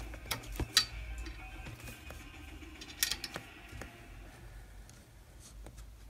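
Handling noise from working on an opened LCD monitor: a few sharp clicks and taps of hands and parts against the sheet-metal power-supply shield and plastic housing, the loudest a little under a second in and about three seconds in, over a steady low hum.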